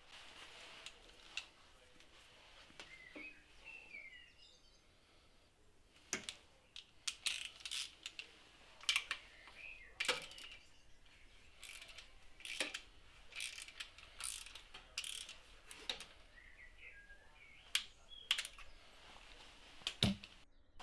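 A hand ratchet and 8 mm socket clicking and clattering in irregular sharp ticks as the bolt holding a plastic timing belt cover is wound in, starting about six seconds in. A few faint high chirps come before it.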